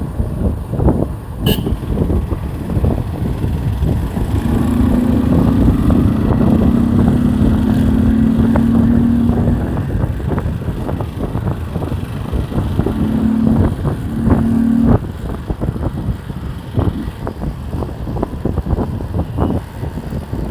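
Bajaj Discover motorcycle engine running with an open, modified air filter, its intake sound coming through as a rough, pulsing note. The revs are held up for several seconds a few seconds in, and again briefly past the middle, where they cut off abruptly.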